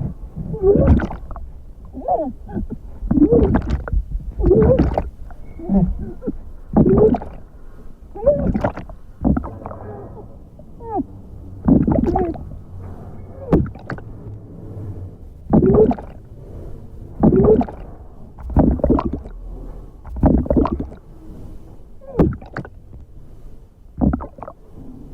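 A woman's voice acting drowning: short muffled, gurgling cries with bubbling, about one every second and a half, like a person struggling and breathing out underwater.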